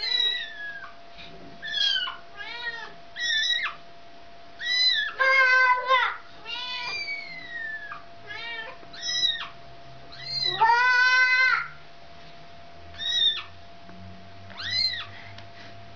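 Kitten mewing over and over in short, high, arched calls about a second apart, with a mother cat's longer, louder meows about five and eleven seconds in.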